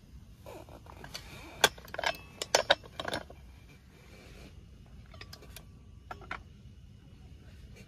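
Sharp clicks and clinks of small hard objects being handled: a quick run about two to three seconds in, and a few fainter ones around five to six seconds.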